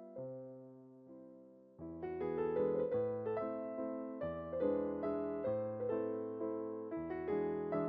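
Background piano music: single notes that strike and fade away, sparse at first, with fuller playing starting about two seconds in.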